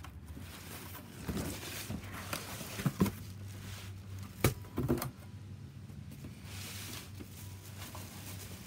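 A cardboard boot box being opened, with a few sharp knocks and scrapes of the lid and flaps, the loudest near the middle. Then thin plastic wrapping crinkles as a hand reaches into it.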